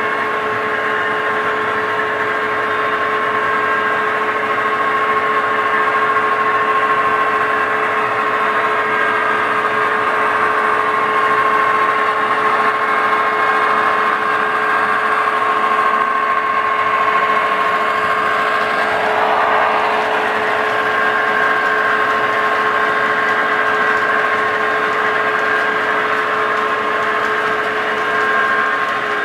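DCC sound decoder playing a Class 66 diesel locomotive's two-stroke EMD engine at idle through the model's small loudspeaker: a steady engine note with a few fixed tones that holds unchanged throughout.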